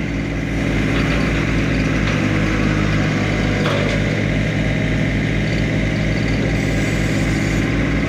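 John Deere compact tractors' Yanmar diesel engines running steadily, with an even low throb and no change in speed.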